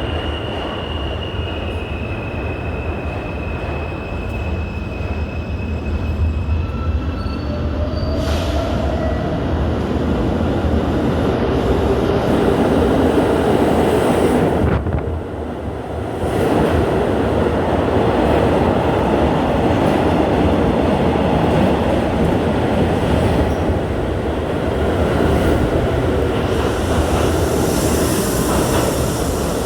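New York City subway garbage train of converted R42 cars rolling along the track, a steady rumble of steel wheels on rail. Thin, high wheel squeals ring over it during the first several seconds, and the sound dips briefly about halfway through before it carries on.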